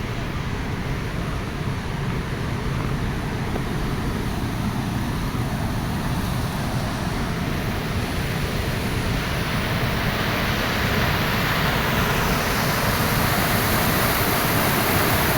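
Steady rushing of a river and waterfall, growing louder and brighter over the last few seconds.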